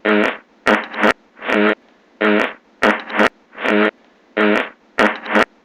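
A string of short farts, each a pitched buzzing blast, repeating in an even rhythm about every two-thirds of a second. Every third beat comes as a quick pair of clipped blasts, giving a repeating pattern like a tune.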